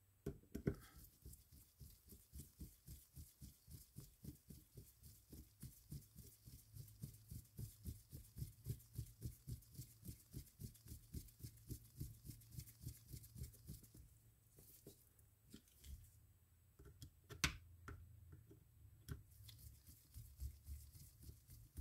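Hand screwdriver turning the small side-plate screws into a Fin-Nor Ahab 16 spinning reel: faint, even clicking at about three a second, a short pause, then a few louder separate clicks near the end.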